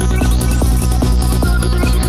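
Goa trance music with a steady electronic beat over a sustained bass and synth lines.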